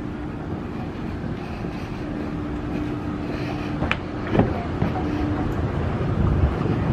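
Airport moving walkway running: a steady low rumble with a faint steady hum, broken by a sharp click about four seconds in and a knock just after.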